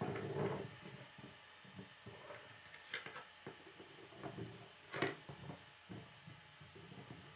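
Plastic K'nex rods and connectors clicking, knocking and rustling as the assembled giraffe model is handled, turned and set down on a wooden table. The clicks are faint and scattered, with a sharp one about three seconds in and the loudest about five seconds in.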